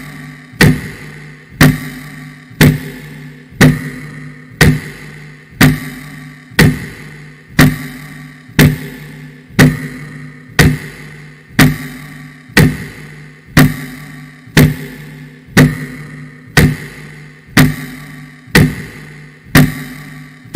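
Background music: a slow, even beat of sharp ticks about once a second over a low held tone.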